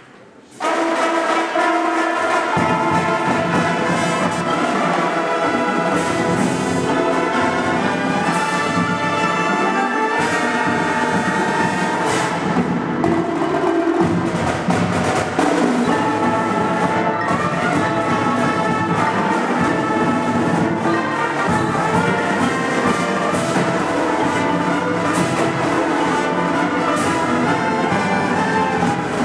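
Marching band's brass section and drumline playing at full volume. The music comes in suddenly about half a second in, with sharp percussion accents throughout.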